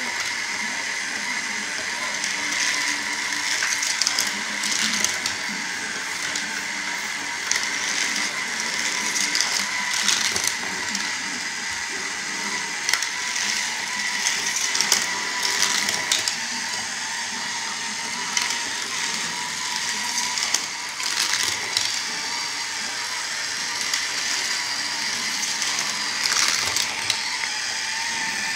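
Motorized lift of a Hot Wheels toy track set running with a steady high whine and a geared, ratcheting clatter as its conveyor carries die-cast cars up the ramp. Sharp plastic clicks and clacks come now and then as cars run along and drop through the track.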